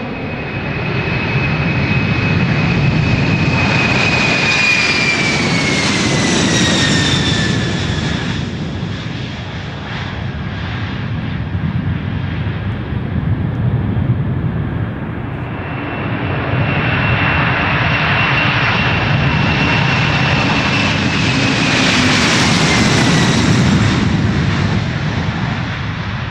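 Boeing 747 jet engines at takeoff thrust, passing by twice. Each pass swells to a loud rumble with a high whine that holds, then falls in pitch as the aircraft goes past.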